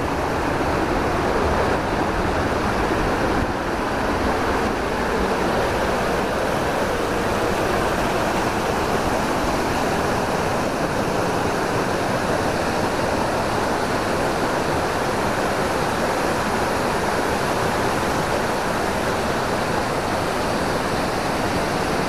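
Steady rush of water from a waterfall plunging into its pool and the stream below it spilling over rocks, an even noise that does not change.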